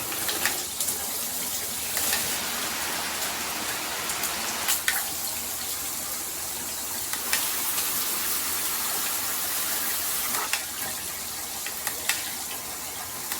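Water spraying steadily from a filtered handheld shower head, with a few brief clicks or knocks along the way.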